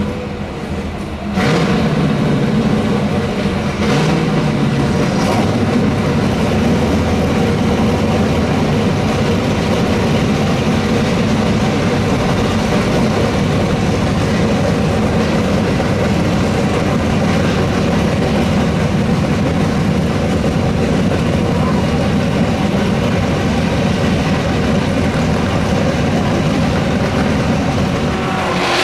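A racing car's engine running loudly and steadily at a constant pitch, jumping suddenly louder about a second and a half in.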